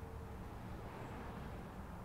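Steady, faint outdoor background rumble picked up by the camcorder's microphone, with a faint steady tone that fades out about half a second in.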